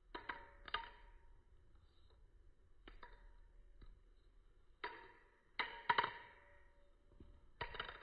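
Balisong (butterfly knife) being flipped: several sharp clicks at irregular moments, some in quick pairs, as the handles and blade knock together, each click leaving a short metallic ring.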